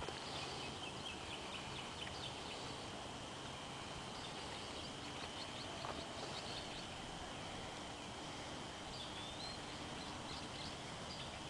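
Faint evening outdoor quiet with animal calls: a steady high chirr and many short chirps, with a brief gliding call about three-quarters of the way through.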